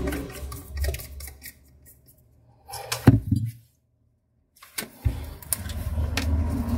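Sharp plastic clicks and knocks from a screwdriver and a plastic toner cartridge being handled as its side screw is undone, over a low steady rumble.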